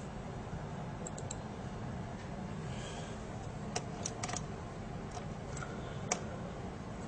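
Small, sharp, scattered clicks and taps of fingers handling a tiny screw against the metal frame of a laptop LCD panel, over a steady low background noise.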